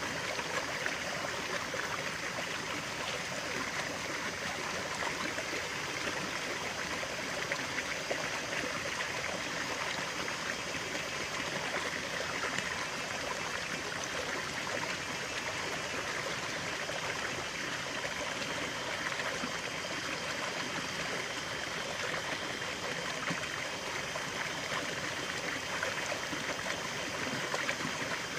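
Stream of running water flowing and trickling over stones, a steady splashing rush.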